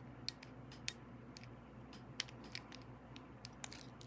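Pick and tension wrench working the pins of an American 1100 padlock: faint, scattered sharp metallic clicks, a few a second, as the pins are set.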